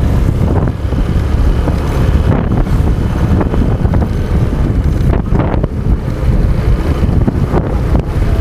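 Loud wind buffeting the microphone while riding a motorcycle, a dense low rumble that rises and falls without pause.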